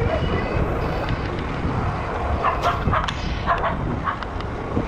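A dog barking several times in quick succession, over a steady low rumble.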